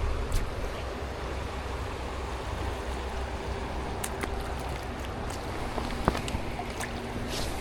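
Steady rush of flowing river water around a drifting boat, over a low rumble, with a few small clicks and knocks.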